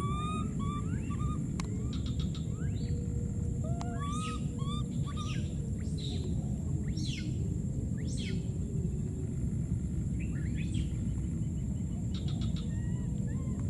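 Outdoor ambience: scattered short, arching chirping calls and a few quick sweeping calls over a steady low rumble and a constant high whine. Two brief runs of rapid clicking come about two seconds in and again near the end.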